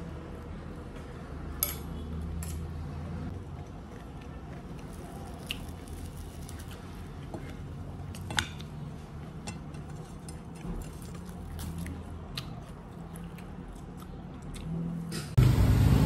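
Eating sounds: scattered crunches, crackles and small clicks of crispy fried food being torn by hand and chewed, with faint tableware clinks over a low steady hum. Near the end a much louder steady noise cuts in suddenly.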